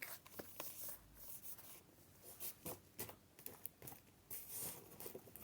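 Paper being handled: soft rustles and a scattered series of small taps and clicks.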